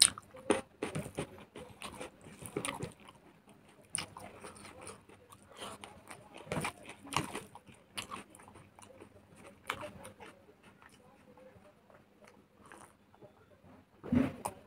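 Close-miked chewing and mouth sounds of someone eating rice and smoked pork: irregular wet clicks and smacks, thinning out in the last few seconds.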